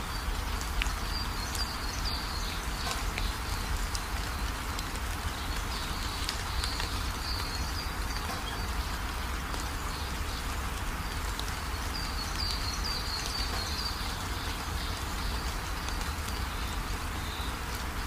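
Steady road noise from a moving car: tyre hiss with a low rumble underneath, and faint high chirps now and then.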